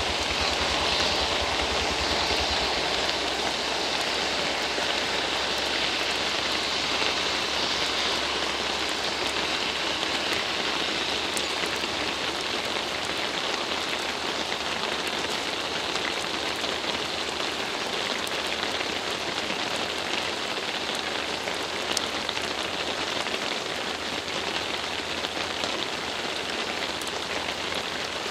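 Steady rain falling on a wet road and foliage, an even hiss. A low rumble underneath fades out in the first few seconds.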